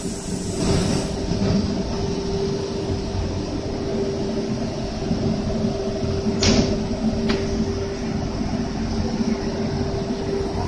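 Automatic spray-coating line for wooden door panels running: a steady mechanical hum with a constant tone, and two sharp clicks a little past halfway, under a second apart.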